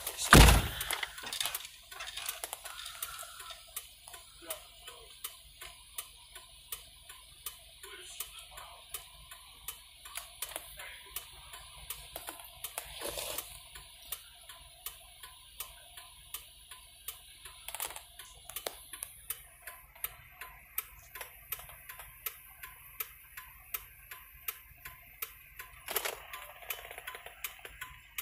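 A loud thump right at the start, then a car's indicator flasher clicking steadily, about one and a half clicks a second.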